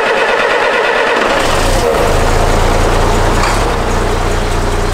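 MAN TGA truck's diesel engine running at the tailpipe just after starting; its low note grows much stronger about a second and a half in, then it settles into a steady idle.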